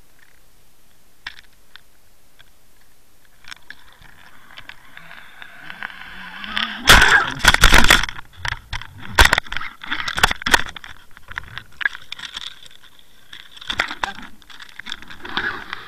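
A pike striking a dead-bait rig underwater, heard through an underwater camera: a rushing water noise builds, then a burst of loud knocks and rattles about seven seconds in as the fish hits the bait, with more sharp knocks over the following few seconds as the hooked pike pulls at the rig.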